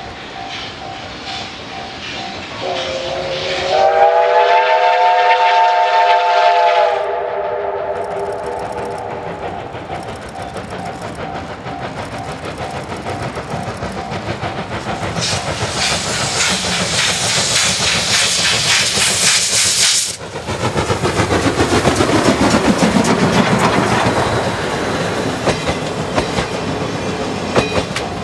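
Steam locomotive C57 1 sounding its steam whistle, several notes at once, held for about four seconds, then working past with rapid exhaust beats and wheel clatter that grow louder as it approaches.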